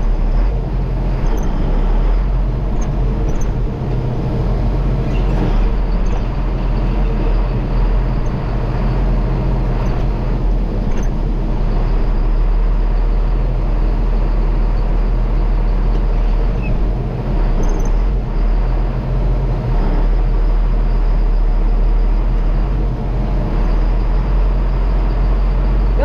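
Farm tractor engine running steadily, a deep even drone.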